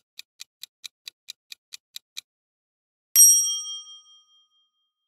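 Quiz countdown-timer sound effect: quick, even ticks about four or five a second that stop after about two seconds. Just after three seconds in, a bright ding sounds, the loudest thing here, and fades away over about a second as the result is revealed.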